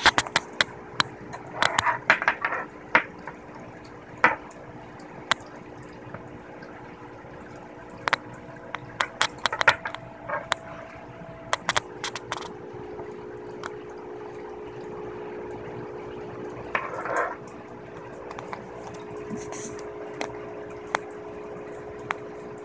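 Metal feeding tongs clicking and tapping on a wooden tabletop, with short scrapes as a dead feeder mouse is handled and moved across it. A steady low hum runs underneath.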